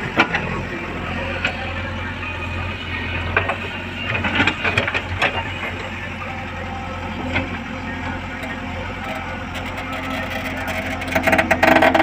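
JCB 3DX backhoe loader's diesel engine running steadily under load as the backhoe digs soil, with bursts of clattering knocks from the bucket and arm working the dirt, one group about four to five seconds in and the loudest near the end.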